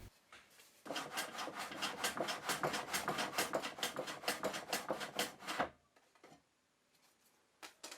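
Hand saw cutting a 45-degree mitre across a thin plywood strip in a mitre jig, quick even back-and-forth strokes for about five seconds, then stopping. A couple of faint knocks follow.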